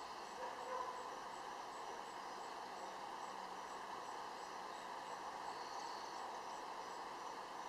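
Steady outdoor background noise with a faint, high insect chirp repeating about twice a second; a short louder noise comes just under a second in.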